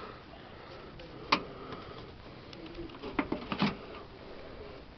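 Secondary hood safety latch on a 2011 Nissan Sentra being worked by hand: one sharp metallic click about a second in, then a quick run of clicks and rattles near the middle as the hood is released and lifted.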